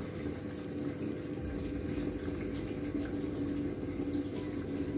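Samsung top-load washing machine filling its drum, a steady rush of incoming water with a steady low hum under it. The water now stays in the drum instead of running straight out of the drain hose, the sign that the cleaned drain seal is holding.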